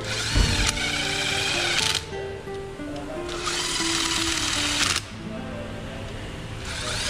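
Background music carrying a melody of held notes. Over it come three bursts of noisy whirring, each about a second and a half to two seconds long.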